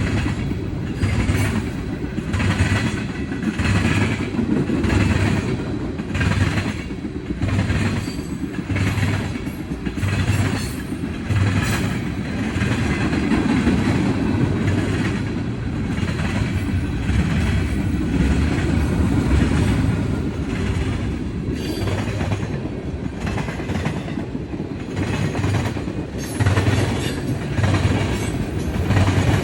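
Railroad cars rolling past, their wheels clicking over the rail joints in a steady rhythm of about one knock every 0.7 seconds over a continuous low rumble.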